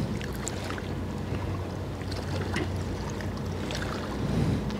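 Water lapping and splashing against the shore, with scattered small splashes, over a steady low engine hum from a boat motor.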